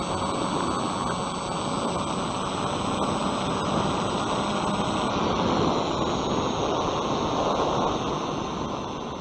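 Onboard in-flight sound of a Bixler 2 electric RC foam plane: steady wind rush over the nose-mounted Runcam 5 action camera, with the electric motor and propeller humming faintly underneath. The rush eases a little near the end.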